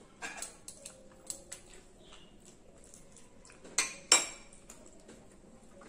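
Metal fork and serving spoons clinking on ceramic plates and a glass serving bowl: a scatter of light clicks, with two louder clinks close together about four seconds in.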